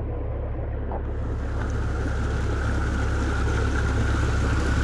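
Muddy water rushing and churning through a creek channel where a beaver dam has been broken open, over a steady low rumble; the rushing sound turns brighter and hissier about a second in.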